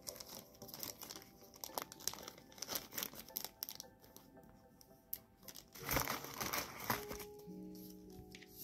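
Clear plastic pin bag crinkling as it is handled and opened, in quick sharp crackles, loudest about six seconds in. Background music throughout, with held notes near the end.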